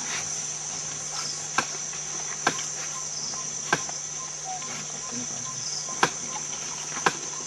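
Steady high shrilling of a forest insect chorus, crickets or similar, with about five sharp clicks or knocks at irregular intervals.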